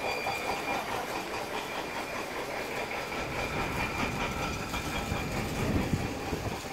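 Steady high-pitched mechanical whine with a light rattle, from machinery at a construction site. A brief low rumble comes near the end.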